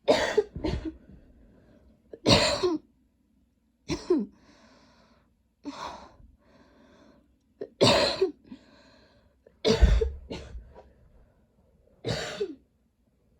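A woman coughing in a long spell: about nine harsh coughs in quick bursts, one to two seconds apart, with breaths drawn in between. The coughing comes from a throat tickle that won't go away.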